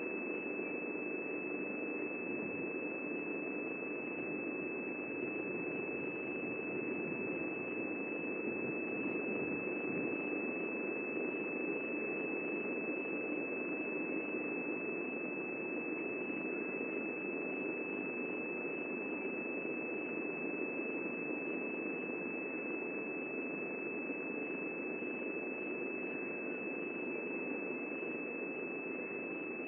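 Steady electronic hiss with a constant high-pitched whine, narrow and muffled like a radio link, with no change throughout.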